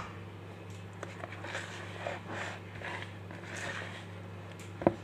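A hand mixing flour with yogurt, eggs and water in a plastic tub: soft, irregular rustling of the mixture, with one sharp knock near the end.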